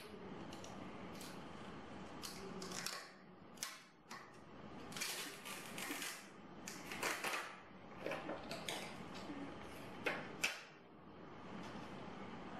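Thin plastic backlight films of an iPhone 6 display crinkling and crackling as they are peeled off and handled with tweezers, in irregular short bursts, with a couple of sharper snaps about ten seconds in.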